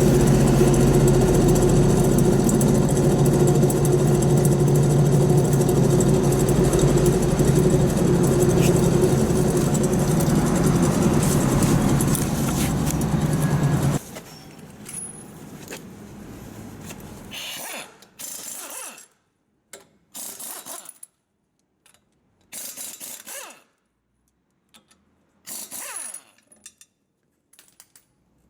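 Daihatsu Tanto on the move with a steady low roar from a worn wheel hub bearing under its road noise. The roar cuts off abruptly about halfway through. What follows is quiet, with a few short, separate bursts of workshop tool noise.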